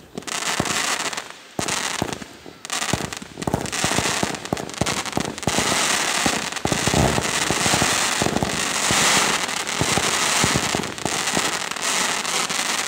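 Fireworks going off in a rapid barrage: many sharp pops and crackles in quick succession over a continuous fizzing hiss, densest in the middle.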